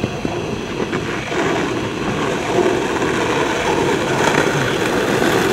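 Skateboard wheels rolling over rough asphalt, a steady rolling rumble that grows gradually louder as the board comes closer.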